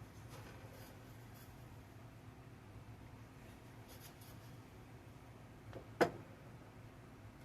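Faint rubbing and scraping from food being handled, with one sharp knock about six seconds in, over a steady low hum.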